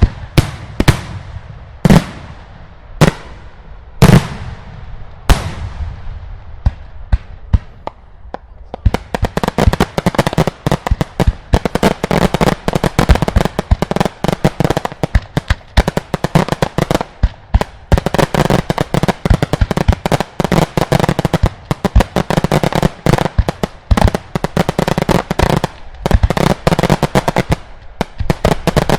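Daylight fireworks: loud single bangs about once a second, each trailing off in an echo. From about nine seconds in they give way to a dense, rapid barrage of bangs and crackles.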